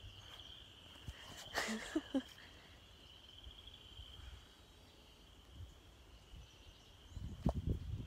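Footsteps on grass and dry leaves, the crunching louder near the end, over a faint steady high-pitched whine.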